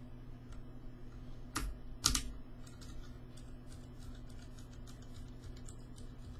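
Keys being typed on a custom Phantom mechanical keyboard with Cherry MX-style switches: two louder clacks about a second and a half and two seconds in, then a quick run of lighter key clicks.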